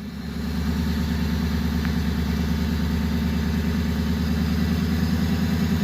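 Flatbed truck's engine held at about 1,000 rpm, misfiring. It comes up slightly in the first half second, then holds steady.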